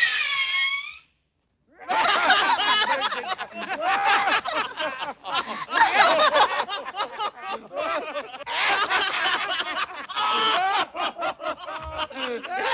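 Several cartoon voices laughing and chattering at once, starting after a short silence about two seconds in.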